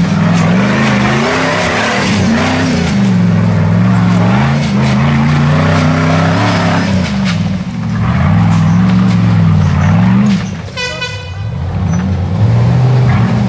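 Rock buggy engine revving up and down in repeated throttle bursts as it crawls up a rocky hill climb. It drops off briefly about three-quarters of the way through, then holds a steadier note near the end.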